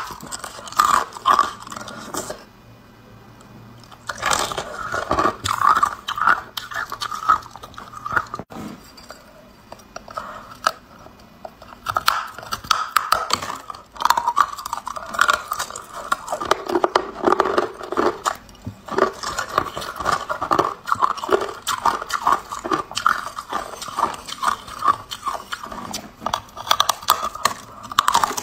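Biting and chewing hard ice from a large block: a dense run of sharp crunches and cracks, dropping off briefly a couple of seconds in.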